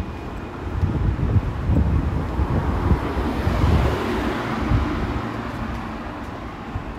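Wind buffeting the microphone, with a passing vehicle whose noise swells and fades, peaking about three to four seconds in.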